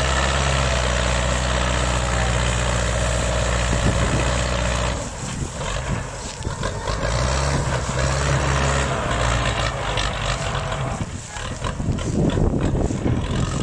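Tractor diesel engine running hard under heavy load, hauling a loaded sugarcane trolley stuck in mud, with black smoke showing how hard it is working. The engine note is steady for about five seconds, then wavers and breaks up, returns briefly, and turns rougher and more irregular near the end.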